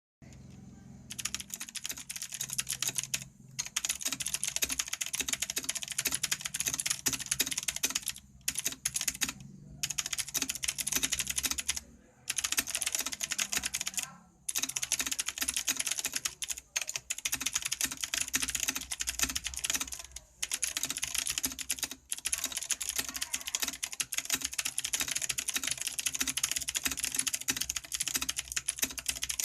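Typing on an IKBC F87 mechanical keyboard with clicky blue switches: fast, dense key clicks in bursts, with a few short pauses between them.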